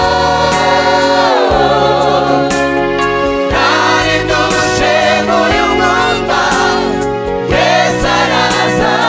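Gospel choir of mixed voices singing with instrumental backing, a lead singer on a microphone among them.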